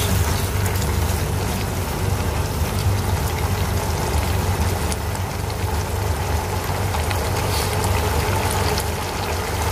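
Ground beef simmering in its juices in a nonstick frying pan, bubbling and sizzling steadily with fine crackles, over a steady low hum.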